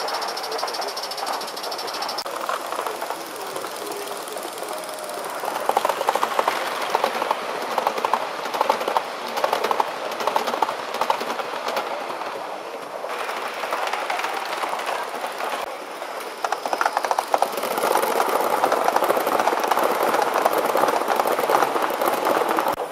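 Model trains running on metal track, with a rapid clicking of wheels over the rail joints over a steady running noise. It grows louder as trains pass, about six seconds in and again near the end.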